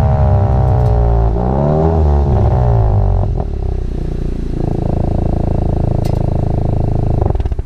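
2017 VW MK7 GTI's turbocharged 2.0-litre four-cylinder through an Invidia Q300 cat-back exhaust, heard at the tailpipe as the car slows: the note falls steadily, rises and falls briefly about one and a half seconds in, then settles into a steady idle from about four and a half seconds in.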